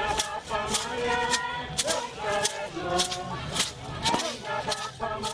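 A group singing a chant together, over sharp clacks struck at a steady beat of about two a second, fitting sticks being struck in a stick dance.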